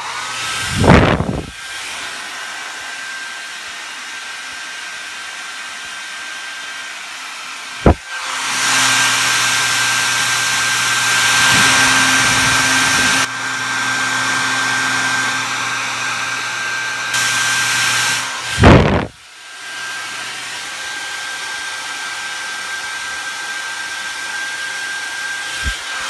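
Panasonic hair dryer running, its motor giving a steady high whine over the rush of air. About eight seconds in a click brings a louder rush with a low hum for about ten seconds. A thump follows, and it returns to the quieter steady run.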